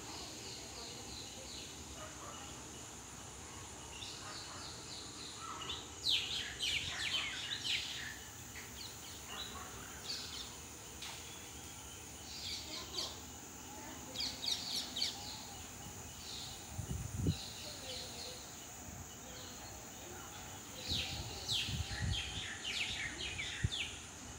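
Birds chirping in short repeated bursts over a steady high hiss of outdoor background noise, with a few low thumps in the second half.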